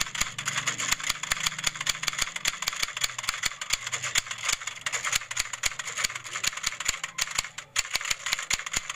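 Typewriter sound effect: a rapid, irregular clatter of keys striking, with a brief pause near the end.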